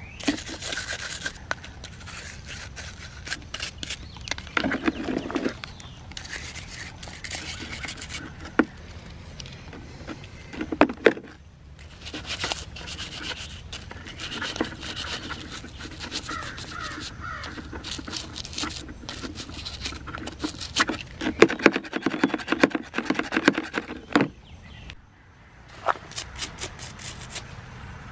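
A nylon brush scrubbing the plastic parts of a bicycle grip shifter in a tub of soapy water: bursts of rapid brushing strokes, with a brief pause near the end.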